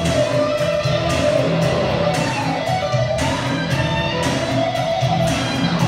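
Music with strummed electric guitar over a steady low line.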